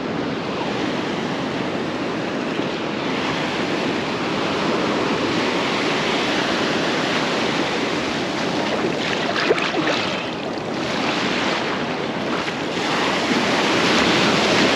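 Ocean surf washing onto the beach, with wind on the microphone; the wash swells and ebbs, loudest near the end.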